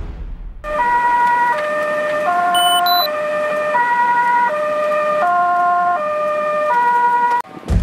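Ambulance siren sounding a stepped hi-lo pattern, each note held just under a second, switching back and forth between pitches. It starts abruptly just after the opening and cuts off sharply near the end.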